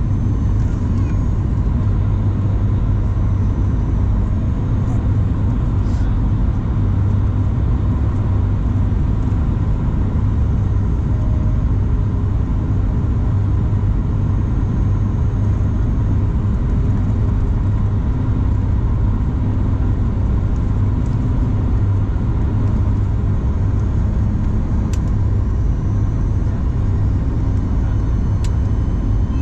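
Steady in-flight cabin noise of a Boeing 737 MAX 8 heard from a window seat beside the wing: a deep, even rumble of airflow and CFM LEAP-1B engines with a faint steady hum.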